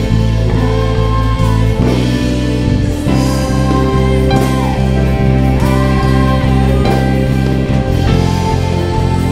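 Live worship band playing a praise song: electric guitar and bass guitar with singers' voices over a steady beat.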